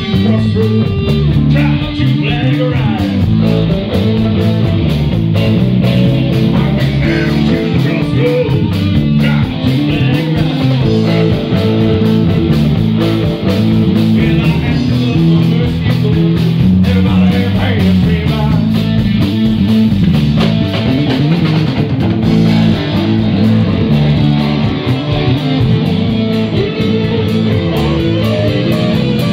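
Live blues-rock band playing: overdriven electric guitars, electric bass and drum kit, with a man singing in places.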